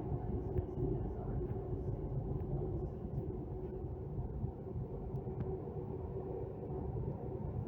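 Delhi Metro train running between stations, heard from inside the coach: a steady low rumble with a constant hum and a few faint clicks.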